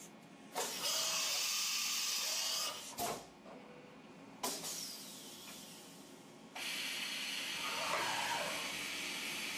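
Fadal CNC mill cutting a brass workpiece held on a rotary table, heard as a steady hiss that comes and goes. It runs for about two seconds, then there is a click, a short fading burst, and it runs steadily again from about six and a half seconds in.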